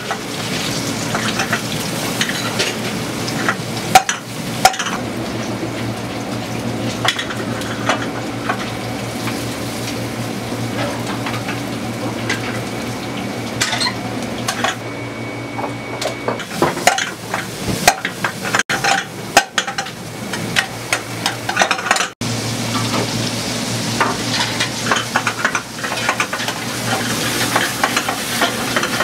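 Oil sizzling as breaded cutlets deep-fry in a large pot and food fries in a wok over a gas flame, with a metal utensil clattering and scraping against the pans. A steady low hum runs underneath.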